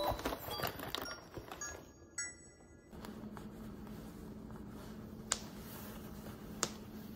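Rustling and handling of a fabric lunch bag with a little music over it, then a steady low room hum broken by two sharp clicks about a second apart: snap buttons being fastened on a quilted jacket.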